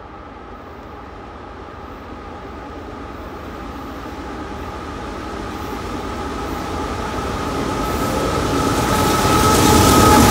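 CSX freight train headed by two GE diesel-electric locomotives, an AC44CW leading an ES44AC, approaching and passing. It grows steadily louder, with a steady high whine over the engine and wheel noise.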